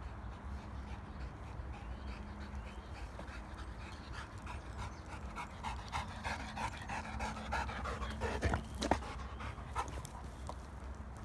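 Labrador retriever panting hard after running, quick repeated breaths that grow closer and louder from about four seconds in, with one sharper, louder sound near nine seconds.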